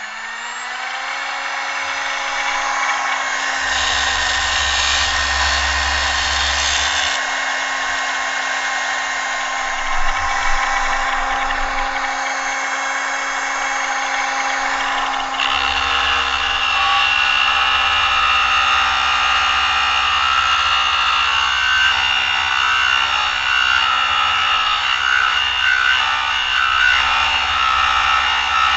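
Electric angle grinder spinning up to full speed, its motor whine rising and then holding steady. The disc bites into steel briefly around four seconds in, then cuts continuously from about fifteen seconds in, adding a harsh grinding noise over the whine.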